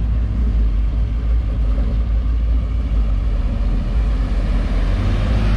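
Engines of classic cars and a pickup running at low speed as they pull out of a lot, a steady low sound without clear revving.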